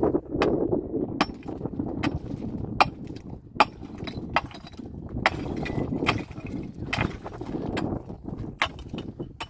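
A series of sharp knocks and clinks, irregular at about one or two a second, over a steady low rumbling noise.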